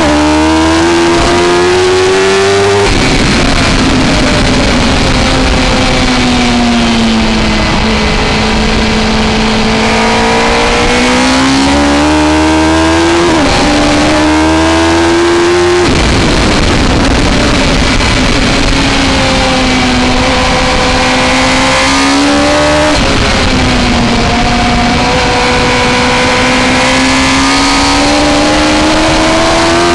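Suzuki GSX-R1000 K3's inline-four engine under race throttle, revs rising and falling through the gears. The throttle snaps shut with a sudden drop in pitch about three seconds in, about halfway and past two-thirds, the revs sliding down as the bike slows for a corner before climbing again under power, with a quick upshift dip between. Wind rush over the bike-mounted camera runs underneath.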